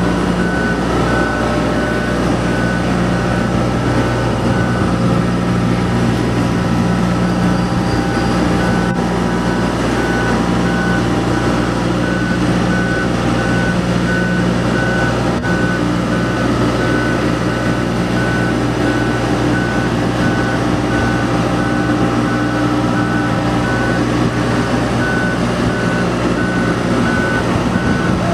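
Marine Travelift mobile boat hoist on the move, its engine running steadily under a regular, repeating high warning beep.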